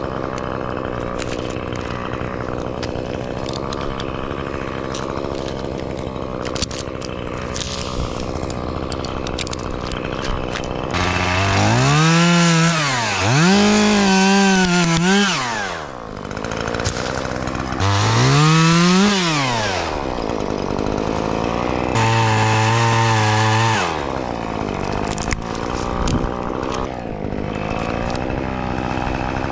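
Gas chainsaw idling steadily, then revved up and cutting pine limbs three times, about eleven, eighteen and twenty-two seconds in, its pitch climbing and rising and falling during each cut, before dropping back to idle.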